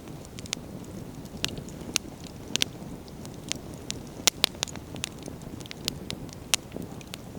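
Wood fire burning, with a steady low rumble of flames and irregular sharp crackles and pops from the burning firewood, a cluster of louder pops about four and a half seconds in.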